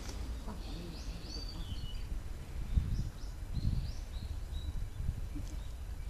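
Small birds chirping: a few short gliding chirps about a second in and again around three to four seconds, over a steady low outdoor rumble that swells briefly twice near the middle.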